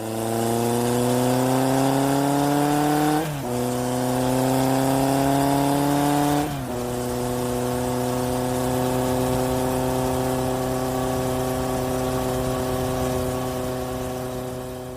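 Inserted sound effect of a vehicle engine accelerating: the pitch climbs, drops sharply at a gear change about three seconds in and again about six and a half seconds in, then holds steady at cruising speed.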